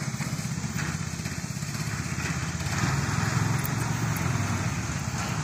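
Small engine of a miniature semi-truck go-kart running steadily with a fast, even putter, getting louder about three seconds in.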